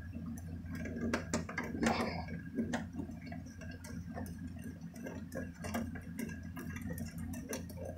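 Small irregular clicks and scrapes of a coaxial cable's screw-on connector being twisted onto a TV's antenna input, over a steady low hum.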